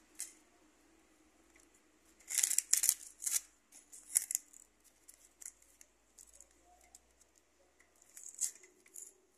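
Crisp rustling and crackling of dry paper packing being pulled off a log hive by hand, in a few short bursts, the loudest about two to three and a half seconds in.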